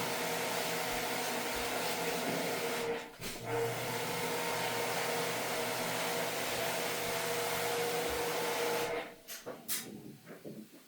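Steady whir of a small electric motor moving air, a hum over a hiss, that stops for a moment about three seconds in, starts again, and cuts off about nine seconds in.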